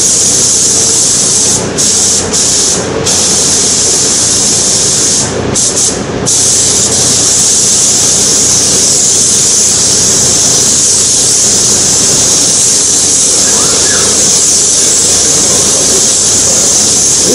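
Gravity-feed compressed-air spray gun hissing as it sprays UV clear coat onto a headlight lens, set at raised pressure to lay a thin coat. The spray stops briefly several times in the first six seconds, then runs steadily.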